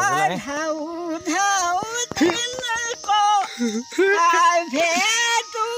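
An elderly man singing a Nepali folk song in a high, wavering voice, holding long notes with short breaks between phrases.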